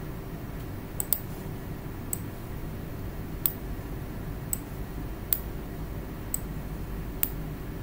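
Computer mouse clicking: single sharp clicks, about one a second at uneven intervals, over a low steady background hum.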